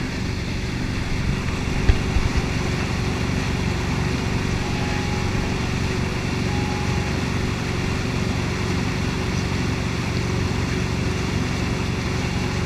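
Wakesurf boat's inboard engine running steadily under way, over the rush of its wake and wind on a camera mounted on the boat. A couple of brief knocks come about two seconds in.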